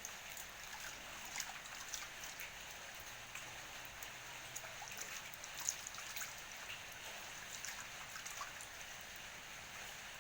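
Water trickling and dripping, a steady hiss with many small drops pattering irregularly and a sharper drop about five and a half seconds in.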